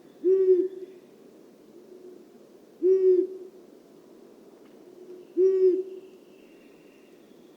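Long-eared owl hooting: three short, low, dull hoots about two and a half seconds apart. This is the monotone "huh" that the male repeats every few seconds in the breeding season.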